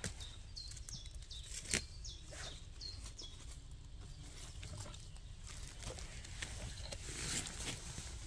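A small bird calling a run of short, high, hooked notes, about two or three a second, for the first three seconds. Under it comes crackling and rustling in dry leaf litter, with a louder rustle near the end.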